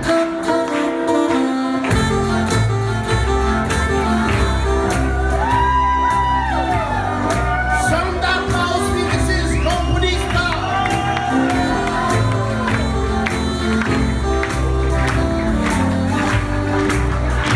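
Live jazz band of two saxophones, trumpet, electric keyboard and electric guitar playing an upbeat number over a steady beat, with bending horn melody lines coming to the fore from about five seconds in.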